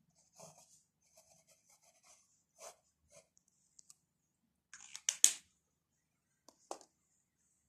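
Pen nib scratching on paper in short strokes as a signature is written, faint. About five seconds in come a few sharp clicks or taps, the loudest sounds, and there is one more near the end.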